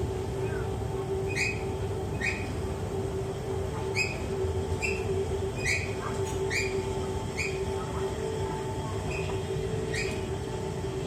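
Escalator running with a steady hum and short high squeaks repeating at uneven intervals, roughly one a second. The squeaking is an abnormal noise from the escalator's moving parts.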